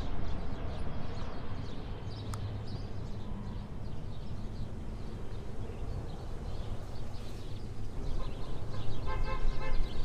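Outdoor ambience: small birds chirping over a steady low rumble, with a short run of repeated chirps near the end.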